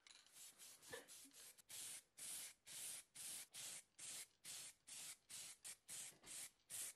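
Liquitex spray paint can hissing in short faint bursts, about two a second, as grey paint is sprayed onto a sculpted figure.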